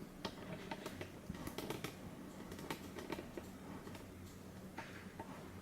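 Faint, irregular light clicks and taps, a few close together between about one and two seconds in, over a low steady hum.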